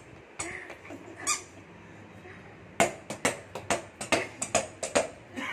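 Two short squeaks, then from about three seconds in a quick run of sharp taps, about four a second.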